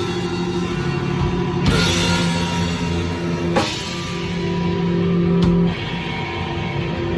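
Slow doom/sludge metal: held, distorted low guitar chords with crash cymbal hits about two seconds apart, the chord changing near the end.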